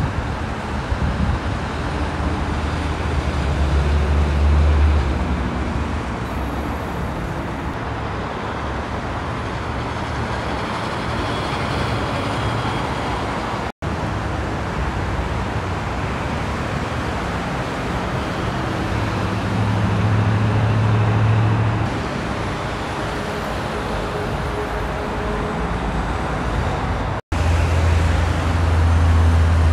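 Steady freeway traffic of cars and trucks passing in a continuous rush of tyre noise. A low heavy-truck engine drone swells three times as big rigs go by. The sound breaks off for an instant twice.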